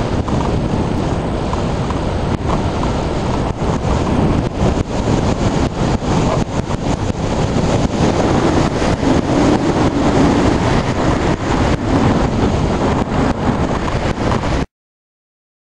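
Loud, gusty wind noise on the microphone of a camera mounted on a hang glider in flight, from the airflow past the glider; it cuts off suddenly near the end.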